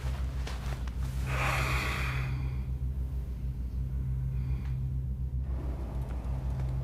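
A steady low hum, with one breathy exhale lasting about a second, about a second and a half in.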